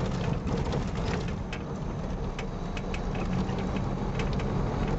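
Car engine running steadily while driving on a rough dirt road, heard from inside the cabin, with many sharp clicks and rattles.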